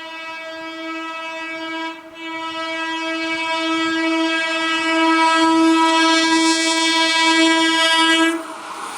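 A train's air horn sounding one long, steady note that breaks off briefly about two seconds in and grows louder as the train approaches. The horn stops near the end, and the rumble of the passing train starts to rise.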